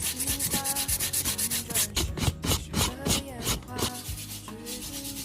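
A brush scrubbed dry across the backs of loquat leaves, rubbing off the fuzz in quick, repeated scratchy strokes.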